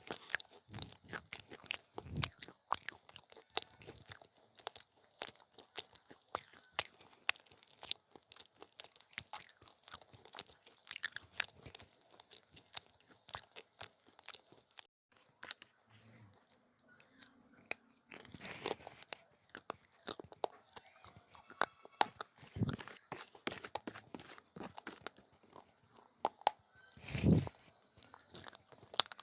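A person biting and chewing crunchy baked clay pieces: a steady run of sharp crackling crunches, with a few heavier bites standing out.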